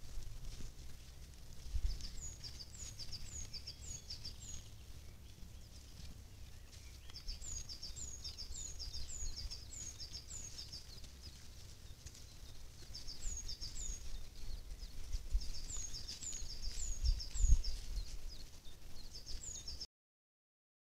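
A small songbird singing in bouts, each a quick string of short, high chirps repeated about twice a second, over a low outdoor rumble with a few dull thumps. The sound cuts off suddenly near the end.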